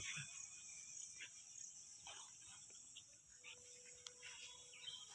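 Faint outdoor ambience: a steady high-pitched insect drone, typical of crickets, with a few faint short chirps.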